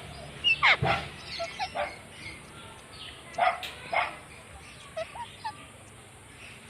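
Indian ringneck parakeet calling: a loud call that falls in pitch about half a second in, two short sharp squawks near the middle, and a few softer chirps between.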